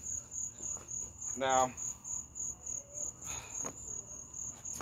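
Crickets chirping in a steady high-pitched pulse, about four chirps a second.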